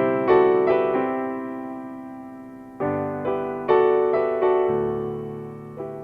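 Piano playing a slow instrumental passage: chords struck one after another and left to ring and decay, with a last chord near the end that fades away.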